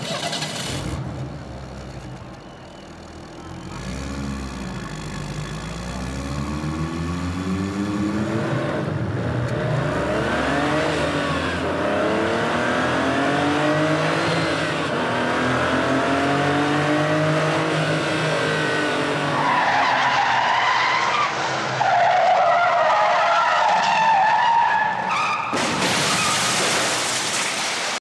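Car sound effects: engines revving and tyres screeching, many overlapping rising and falling whines that grow louder. A sudden loud burst of noise near the end, like a crash.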